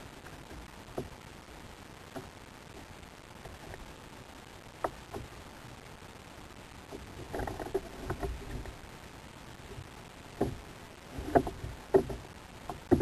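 Knocks and taps on a kayak at sea while a fish is played on a jigging rod, over a steady hiss of wind and water. A stretch of clatter comes about seven seconds in, and several loud, sharp knocks in quick succession come near the end.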